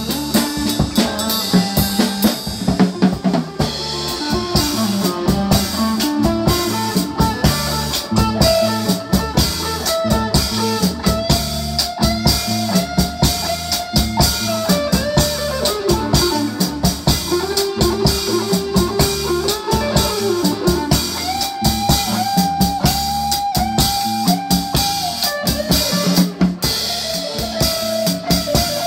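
Small band playing an instrumental: a drum kit keeps a steady beat under an electric bass line, while an electric guitar plays a slow lead of long held notes that slide from one pitch to the next.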